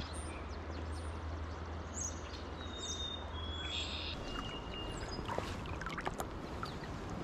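Steady rush of flowing river water. A few short, high bird chirps come in about three seconds in.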